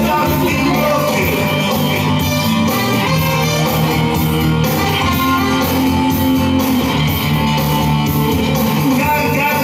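Loud music with singing and guitar.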